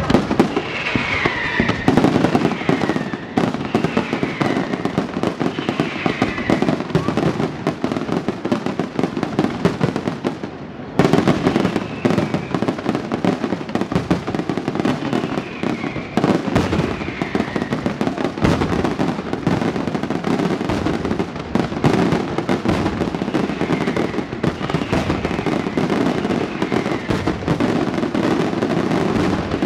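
Fireworks display: aerial shells bursting overhead in rapid, continuous bangs and dense crackling. There is a short lull about ten seconds in, then a sudden loud burst starts it up again.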